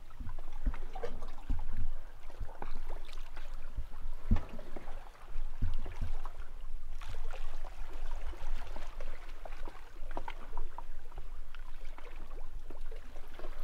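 Small waves lapping and slapping irregularly, with uneven low thuds and short splashy ticks.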